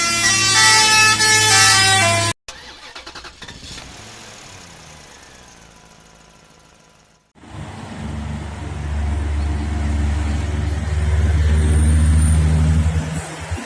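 A truck's telolet air horn plays a stepping multi-note melody for about two seconds and is cut off abruptly. After a fading lull, a heavy diesel truck engine runs loudly with a deep, steady drone, building and then falling away near the end.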